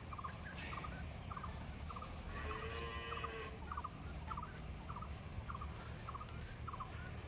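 Domestic ducks on a pond giving short, soft quacks, faint and repeating about twice a second.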